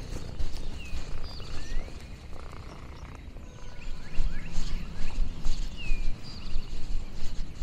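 Songbirds chirping and whistling in short calls over a loud, uneven low rumble close to the microphone. The rumble eases off for a couple of seconds midway.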